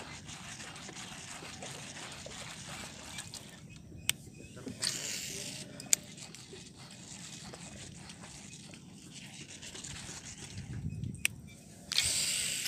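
Fishing rod and reel being cast and worked, with a few sharp clicks and two brief hissing rushes, one about five seconds in and one near the end, over a steady quiet background.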